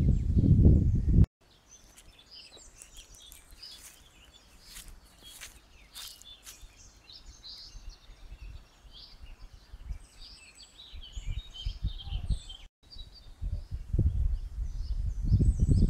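Small birds chirping and calling in woodland, with many short high calls. A loud low rumble of wind on the microphone fills the first second, stops abruptly, and builds again over the last few seconds.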